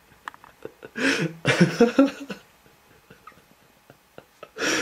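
Blue point Siamese cat meowing: two calls about a second in, the second one longer.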